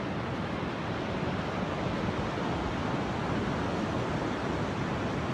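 Steady wash of ocean surf breaking on a beach, with some wind noise on the microphone.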